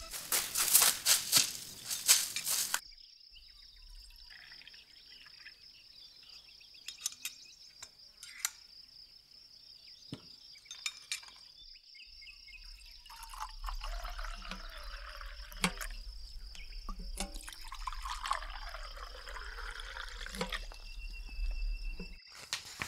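A shaker rattles in music for about three seconds and cuts off suddenly. Then come quiet liquid sounds, pouring and dripping with scattered clicks, over a steady high-pitched trill. The liquid sounds swell from about halfway through.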